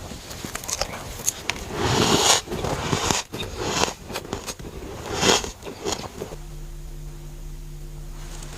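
Freezer frost being bitten and chewed, with crunching and scraping, the loudest bites about 2 and 5 seconds in. About six seconds in, this gives way to a steady low hum.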